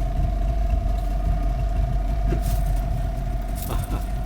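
Boat's outboard engine idling, a steady low rumble with a constant whine, with a couple of brief clatters in the second half.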